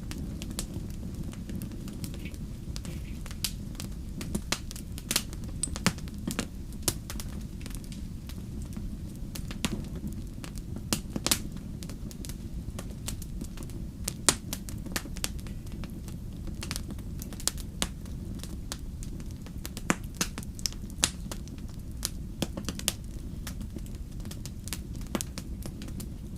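Fire crackling in a fireplace: irregular sharp pops and snaps, several a second at times, over a steady low rumble of the flames.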